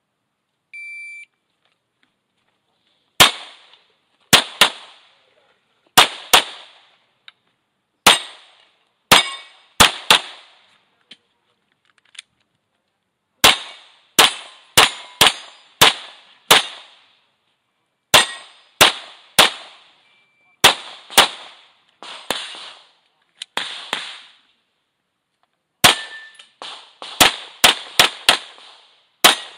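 A shot timer's start beep about a second in, then a string of some thirty pistol shots in a timed practical-shooting course of fire. The shots come mostly in quick pairs, with short pauses between groups, and the last falls just before the end.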